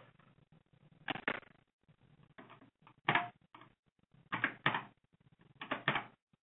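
Computer keyboard keystrokes: short pairs of key presses every second or so, menu numbers and Enter typed to pick a boot device and boot mode in a firmware menu.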